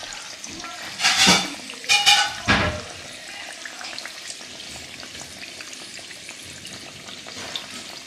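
Guyanese egg ball, an egg coated in batter, deep-frying in hot oil: a steady sizzle, with three short louder bursts between about one and three seconds in.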